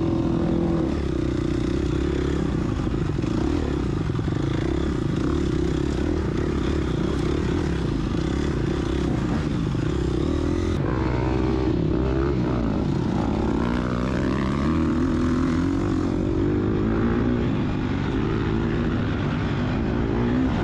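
Gas Gas EX250F's four-stroke single-cylinder dirt bike engine running hard, its revs rising and falling continuously as it is ridden, with the most up-and-down revving in the middle of the stretch.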